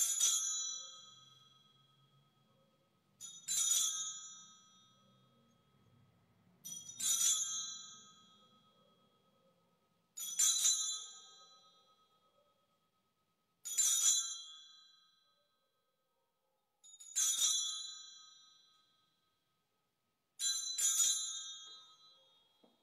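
Altar bell rung seven times, about every three and a half seconds, each ring a bright jingle that fades over about two seconds. The ringing marks the benediction, as the priest blesses with the monstrance holding the Blessed Sacrament.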